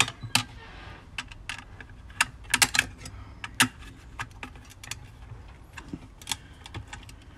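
Irregular sharp metallic clicks and clinks of a screwdriver and copper wires against the metal AC disconnect box and its terminal screws while the ground wires are fastened, with a few louder clicks near the start and about two and a half to three and a half seconds in.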